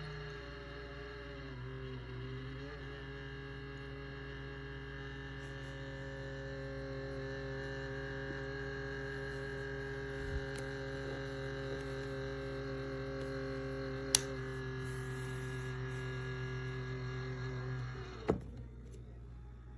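Ultrasonic cool-mist humidifier running with a steady electrical hum of several pitched tones. A sharp click comes about two-thirds of the way in, and the hum cuts off with a click near the end.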